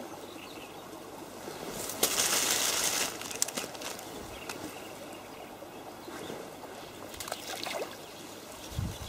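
Balls of groundbait splashing into shallow water among reeds. There is a hissing splash about two seconds in, a few small clicks and splashes after it, and a dull plop near the end.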